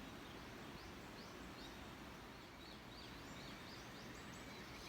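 Quiet outdoor ambience with small birds giving a series of short, thin, high chirps.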